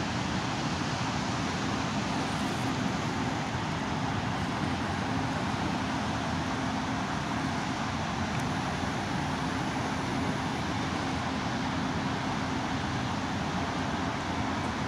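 Steady, unbroken noise of distant city traffic, with a faint steady hum in it.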